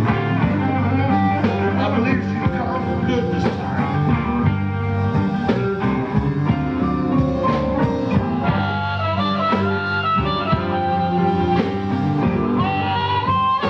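Live blues-rock band playing: electric guitar over bass and drums, with sustained, bending lead notes.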